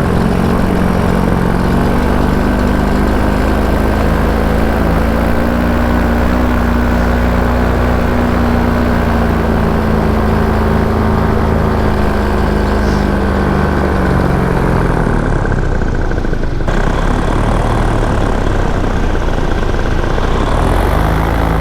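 Paramotor engine and propeller running steadily in flight, with wind rush over it. About thirteen seconds in, the engine note drops and fades under the wind noise for several seconds, then comes back near the end.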